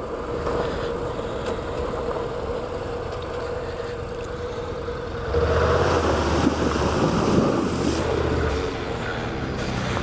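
Motorcycle engine running steadily on a gravel trail. About five seconds in, the bike ploughs through a creek crossing: water splashes and sprays, and the engine gets louder and deeper for about three seconds before it settles again.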